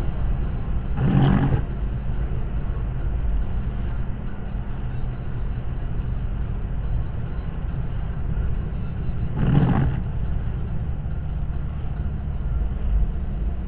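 Steady road and engine rumble inside a moving car's cabin, with two brief whooshes as oncoming vehicles pass, about a second in and again near ten seconds.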